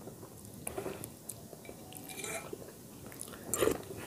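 A person eating chicken soup: quiet chewing with a few small clicks, the loudest about three and a half seconds in.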